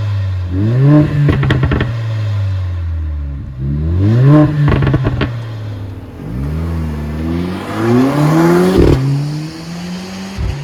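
Mercedes-AMG CLA 45's turbocharged four-cylinder engine revving up sharply and falling back three times, the third rise longer, with exhaust crackles and pops as the revs drop.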